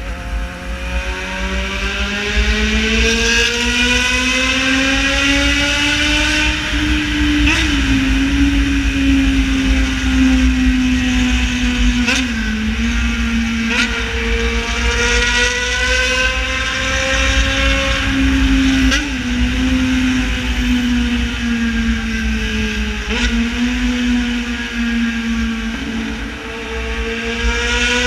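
Yamaha XJ6 Diversion's 600 cc inline-four running hard through a straight-pipe full exhaust on the move, its pitch climbing over the first few seconds, then holding with small rises and falls and brief breaks about four times. Wind rumble on the microphone underneath.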